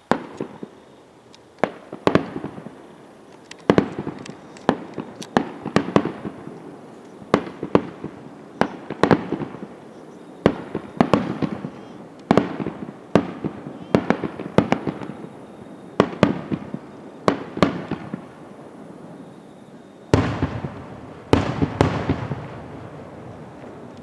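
Fireworks shells bursting in quick succession, sharp bangs about one a second, each trailing off with an echo. The bangs cluster thickly near the end.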